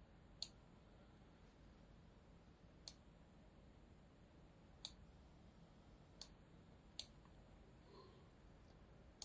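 Computer mouse clicking a handful of times, single sharp clicks a second or two apart, against near silence.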